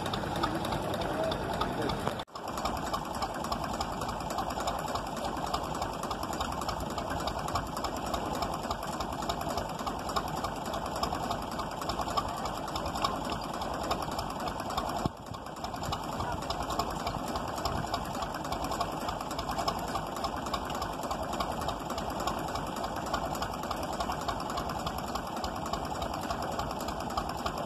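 Tractor engine running steadily, driving a vegetable-washing trailer's rotating mesh drum through the PTO shaft while the drum turns in river water washing carrots, with a fast mechanical rattle. The sound drops out briefly about two seconds in and again about fifteen seconds in.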